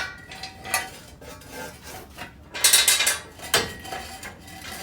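Irregular scraping and rubbing, several short bursts, with faint metallic ringing in between: hand-worked metal parts and tools.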